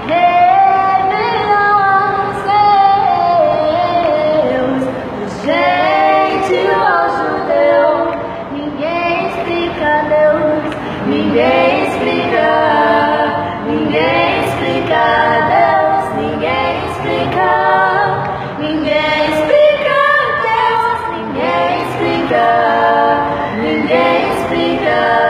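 Female vocal trio singing a cappella in close harmony, reharmonized, with several voices moving together and fast melismatic runs bending up and down.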